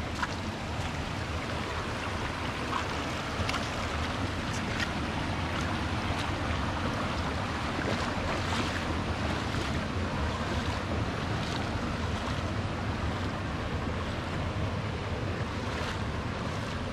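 Mountain stream running over rocks: a steady rush of flowing water with occasional small splashes.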